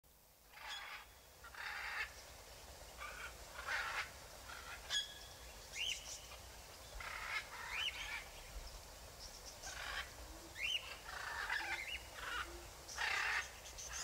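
Flock of gulls calling: short harsh cries about once a second, some with a pitch that rises and falls.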